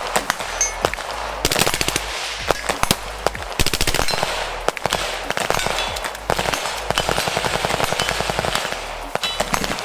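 Gunfire at a shooting range: two short, rapid bursts of automatic fire, one about a second and a half in and one about four seconds in, with a longer stretch of fast, overlapping shots later on and scattered single shots throughout.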